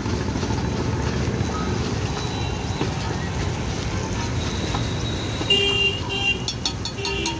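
Steady low rumble of street traffic, with a vehicle horn tooting in short repeated honks from about two-thirds of the way in, and a few sharp clicks near the end.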